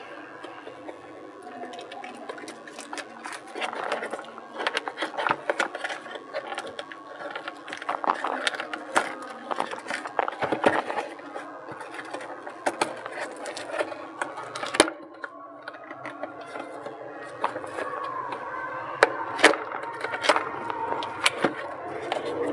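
Handling noises from a small retail package being opened: irregular clicks and taps of plastic and cardboard, with rubbing and scraping in between.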